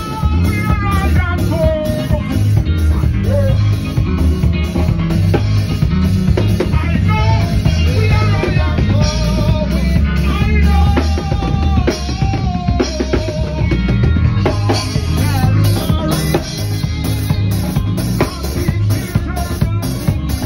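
Live band playing a revival beat: a drum kit with kick, snare and rimshots over a bass line, with a voice singing over it through a PA.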